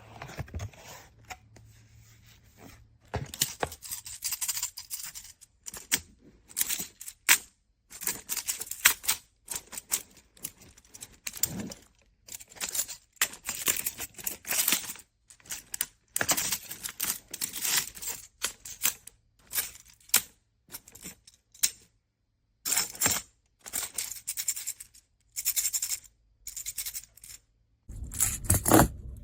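Plastic magnetic building blocks clicking and clattering as they are handled and snapped together, in irregular bursts with short pauses.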